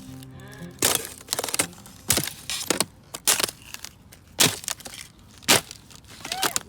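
Sheet ice on the ground cracking and shattering, a string of about eight sharp, crisp cracks at uneven intervals, the loudest two in the second half.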